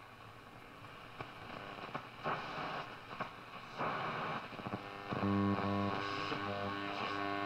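Saba UW 175-Z valve radio's loudspeaker being tuned across the shortwave band: hiss and static with brief bursts of passing signals. About five seconds in, it lands on a station and a steady pitched sound comes in.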